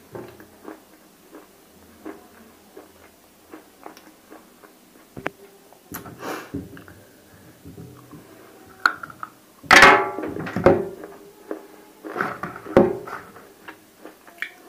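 Biting and chewing hard clay cubes coated in roasted nakumatt clay paste: small crumbly clicks, then several loud crunches, the loudest about ten seconds in.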